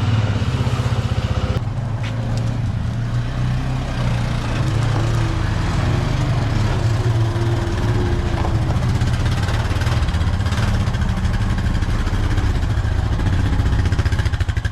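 A vehicle engine running steadily at low speed, a loud low hum with an even firing pulse.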